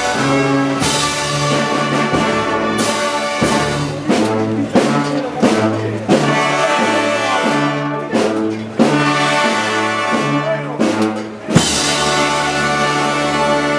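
Brass band playing a slow march: sustained brass chords over a pulsing bass line, with a few sharp percussion hits.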